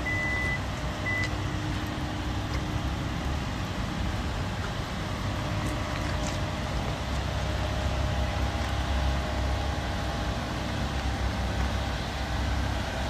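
Genesis GV80 SUV with the 3.5-litre twin-turbo V6, running as the car moves slowly, heard from outside as a steady low rumble. A high electronic beep sounds at the start, then a shorter one about a second later.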